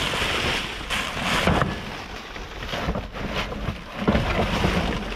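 Clear plastic bags and packaging crinkling and rustling as hands rummage through trash in a dumpster, in uneven bursts.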